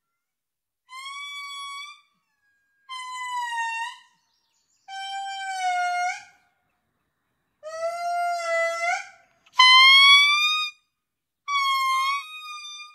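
Indri singing: six long, wailing notes of about a second each with short silent pauses between, the pitch stepping down over the first four and then leaping back up for the loudest note near the end.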